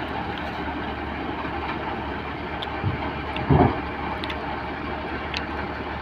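New Holland combine harvester's engine running steadily, with a light knock and then a louder heavy thump about three and a half seconds in.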